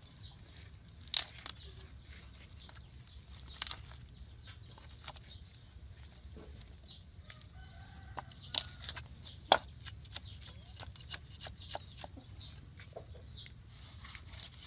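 Chickens clucking in the background, with a scatter of sharp clicks and knocks throughout that are louder than the clucking.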